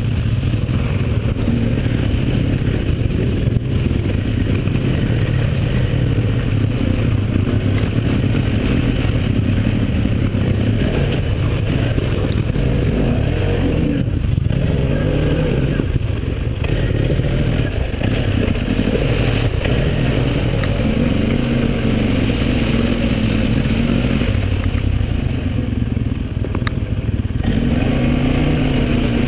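Quad bike engine running under way, heard from the rider's seat, its revs rising and falling as the throttle changes, with the tyres churning through mud.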